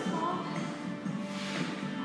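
Background music playing.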